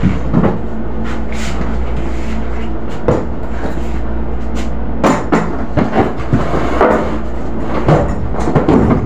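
Hard plastic storage crates and their contents being handled and shifted on shelves: irregular knocks and clatters over a steady low hum.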